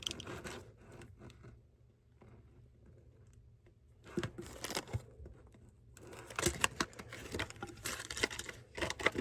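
Plastic packaging crinkling and rustling as it is handled, in short bursts of crackling with a quiet pause of about two seconds in the middle.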